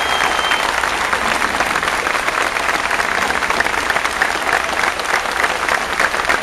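A large outdoor crowd applauding steadily: a dense mass of clapping hands.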